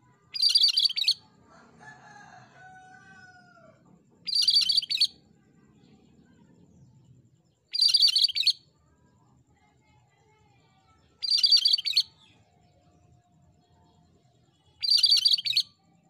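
Cucak kerinci (cream-striped bulbul) singing: five short, high, rapid trilling phrases, evenly spaced about three and a half seconds apart.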